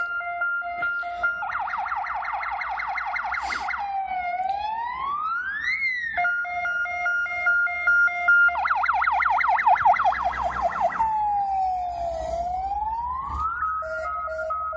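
Fire engine's electronic siren going past, cycling through a two-tone hi-lo, a fast yelp and a slow rising-and-falling wail, over and over. The vehicle's engine and tyre noise swells as it passes, about nine to eleven seconds in.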